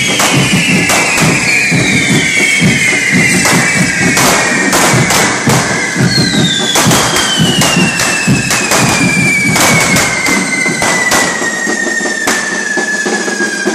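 Correfoc fireworks: spinning spark fountains on the devils' poles hiss and whistle, each whistle falling slowly in pitch, with many sharp bangs going off throughout. One long falling whistle starts about halfway through and runs on to the end.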